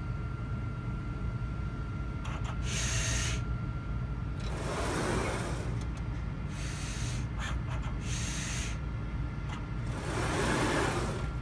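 Hamilton Microlab STAR liquid-handling robot running: a steady hum with a faint high tone, broken by about five short bursts of motor whir as its pipetting arm moves, with a few light clicks in between.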